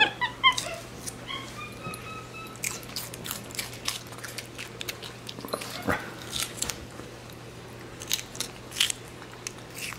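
Capuchin monkey chewing and biting raw red bell pepper, with scattered wet crunches and clicks. In the first couple of seconds it gives a few short high squeaks and a thin whine.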